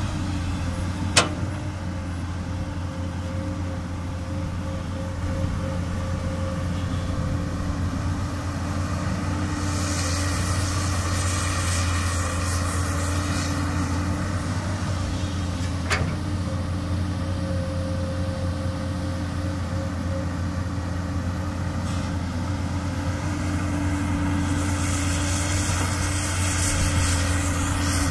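Komatsu PC200 excavator's diesel engine running steadily under work. Two sharp knocks sound, one near the start and one about halfway through, and a high hiss swells up twice for a few seconds.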